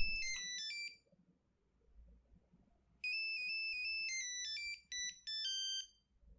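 Nokia 3310 monophonic ringtones: a run of single beeping notes that ends about a second in, then after a pause a new tune of quick stepped beeps, single notes stepping up and down, for nearly three seconds.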